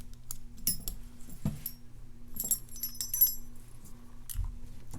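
Small metal tools and a key working inside a padlock core: scattered light clicks and short metallic clinks, a few of them ringing briefly, over a steady low hum.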